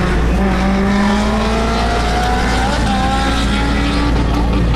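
Car engine pulling in gear from inside the cabin, over a steady low road rumble: its pitch climbs slowly, drops suddenly at a gear change about two and a half seconds in, then climbs again.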